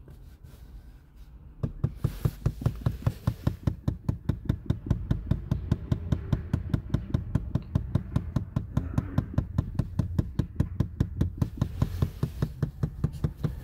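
Air-recirculation flap actuator behind the glovebox of a 2022 VW Vento, set off by the recirculation button, knocking rapidly and evenly at about six clicks a second, starting a couple of seconds in. The noise is the sign of damaged gears inside the actuator.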